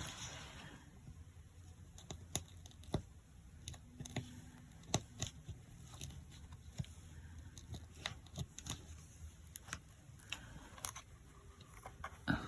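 Faint, irregular snips and clicks of scissors cutting a small piece out of a Velcro dot, with light rustling of the handled material near the start and again near the end.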